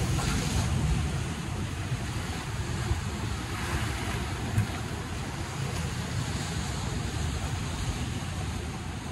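Sea waves breaking and washing over shoreline rocks, with one surge near the start and another about four seconds in, over a steady rumble of wind on the microphone.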